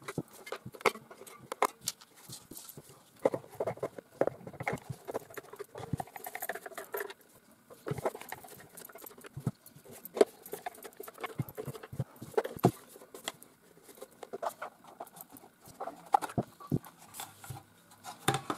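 A screwdriver taking the screws out of the back of a plastic portable DAB radio, with irregular clicks, taps and scrapes of the plastic casing being handled. The back casing is lifted off near the end.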